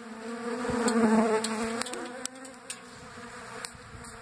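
A swarm of bees buzzing close around a birdseed feeder, a droning hum whose pitch wavers as individual bees fly past, loudest about a second in as one passes close. Scattered sharp pings run through it, from seed being flicked out by the bees.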